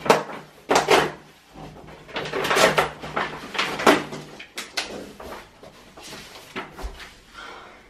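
Cardboard packaging of a flat-packed IKEA Alex drawer unit being pulled open and folded back by hand: a string of irregular scrapes and rustles, the loudest in the first half, fading toward the end.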